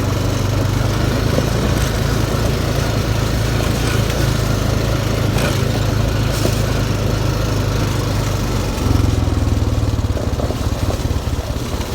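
Small off-road vehicle engine running steadily while riding over a bumpy dirt trail, growing louder about nine seconds in.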